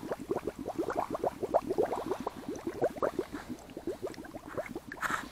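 Water gurgling and bubbling in an ice-fishing hole, a quick run of short rising bubble chirps, as a container of live bait is pushed down into the water.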